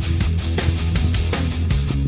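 Rock intro music with a fast drum beat, bass and distorted electric guitar.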